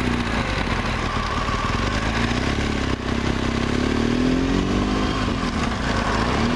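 Motorcycle engine running while being ridden, its pitch rising and falling twice with the throttle, then holding steady near the end.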